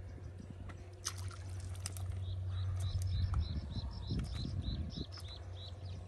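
A brief splash of water about a second in, then a high chirping call repeating about three times a second over a steady low hum.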